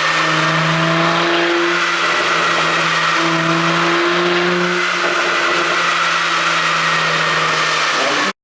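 ECU-tuned 2016 Mercedes-Benz S400 4Matic engine running at fairly steady revs: a low drone that rises and falls slightly in pitch, over a loud rushing noise. It cuts off abruptly near the end.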